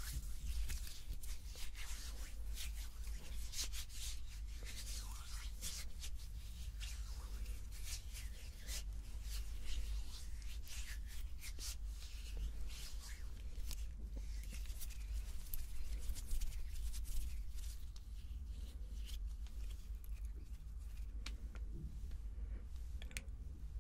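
Hands rubbing together and moving close to a sensitive microphone: a continuous dry skin-on-skin rustle made of many small brushing strokes.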